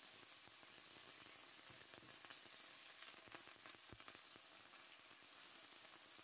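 Raw chicken pieces sizzling faintly in hot oil in a frying pan, with a few soft clicks as a silicone spatula pushes them around.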